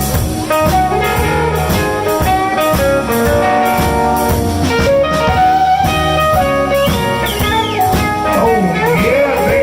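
Live blues band playing an instrumental passage: guitar and bass over a drum kit keeping a steady beat, with bent notes near the end.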